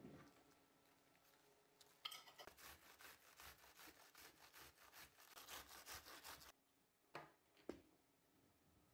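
Cabbage being grated on a metal box grater against a wooden board: a run of rapid rasping strokes lasting about four seconds, followed by two sharp knocks near the end.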